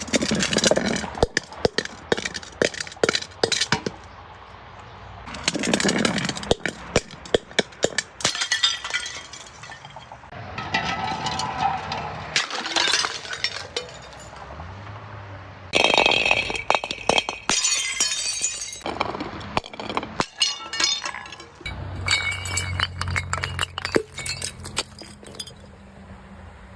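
Glass bottles being crushed and shattering: about six bouts of dense crunching, cracking and tinkling glass, some with a brief ringing of glass, separated by short lulls. A low hum sits under some of the later bouts.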